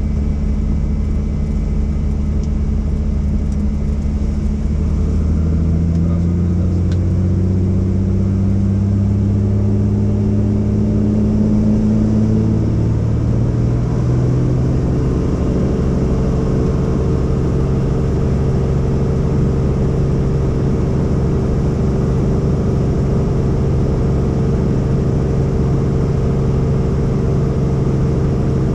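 Helicopter turbine engine and rotor running, rising in pitch over about ten seconds and then holding steady: the rotor coming up to flight speed.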